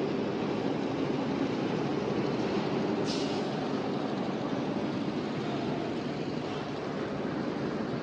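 Steady drone of construction-site machinery running, with a brief hiss about three seconds in.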